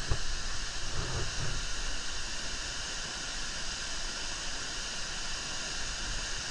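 Steady, even rush of a waterfall pouring into a pool.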